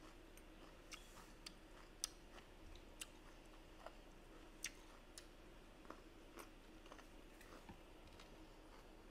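Faint eating sounds: soft chewing with scattered sharp clicks of chopsticks picking at fish on a plate, the two loudest about two and four and a half seconds in, over a low steady hum.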